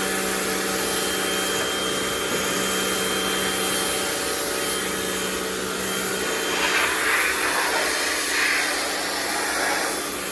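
Rock&Rocker HWY12 high-pressure washer running: a steady motor hum over the hiss of the water jet, with a stretch of louder hiss about two-thirds of the way through, stopping right at the end.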